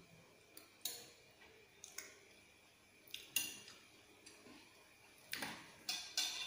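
Metal spoon and fork clinking and scraping against a ceramic plate of satay while eating: several short, separate clinks spread over a few seconds.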